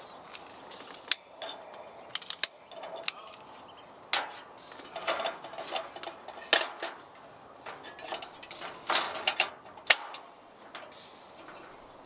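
Camp cookware and utensils being handled: irregular clicks, taps and light clatter, with a few sharper knocks spread through.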